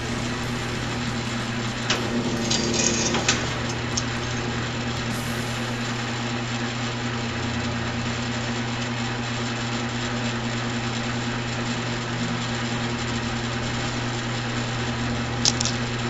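Bluerock Model 945 electric wire stripping machine running, its 3 HP motor driving the belts, gears and cutter rollers with a steady hum. About two to three seconds in, a short run of clicks and crackles as 14 AWG THHN solid copper wire is fed through the rollers and cutters, and a single click near the end.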